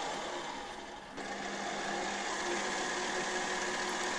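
Milling machine running steadily with a cutter working a metal workpiece, first an end mill finishing a climbing cut; about a second in the sound changes abruptly to the mill taking a cut with a fly cutter.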